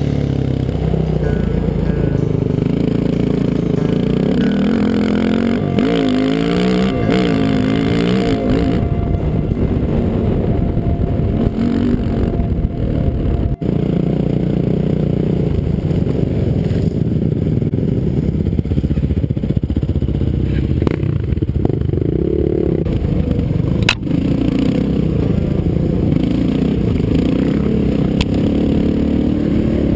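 Off-road vehicle engine heard from the handlebars, running continuously and revving up and down as it rides over a rough dirt trail, with rattling and wind noise.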